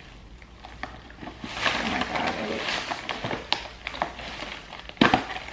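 Thin plastic carrier bag rustling as a plastic takeout container is handled on it, with scattered light clicks and one sharp snap about five seconds in.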